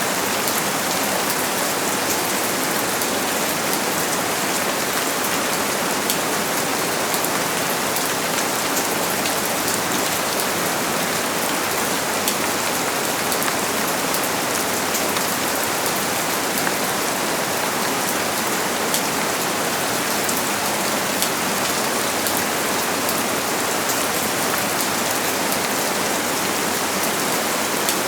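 Steady rain falling on a surface, a dense even patter of many drops with fine individual drop ticks.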